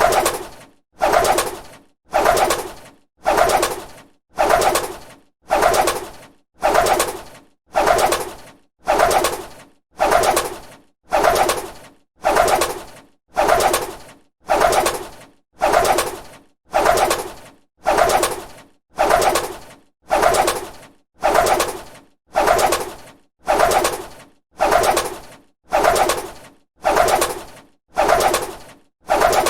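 A bird's wings flapping in short bursts, each starting sharply and fading quickly, repeating evenly about once a second.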